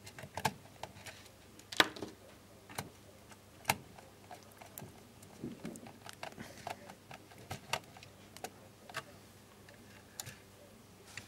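Irregular small clicks and taps of a screwdriver and stiff wires against plastic screw terminals as a wire is fitted and tightened into a terminal of a DC injection braking unit, with two sharper clicks about two and nearly four seconds in.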